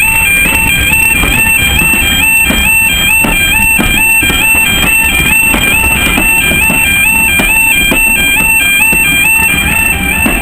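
Level crossing warning alarm sounding as a train passes: two tones alternating about twice a second, over the clacking of the coaches' wheels on the rail joints.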